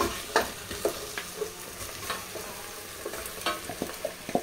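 A plastic spatula scraping and knocking against a steel bowl as marinated goat trotters are pushed out into a pressure cooker, with irregular scrapes and clunks over a faint steady sizzle of the browned onions frying in the cooker.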